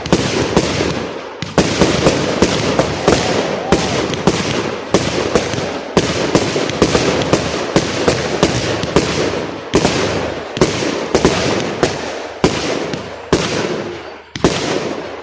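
Fireworks display going off in a dense barrage: sharp bangs of bursting shells, several a second, over continuous crackle. It thins out near the end.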